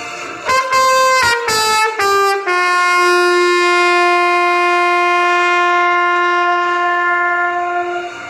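Solo trumpet playing the closing phrase of a gospel song: a few short notes stepping down in pitch, then a long final note held for about five and a half seconds before it stops.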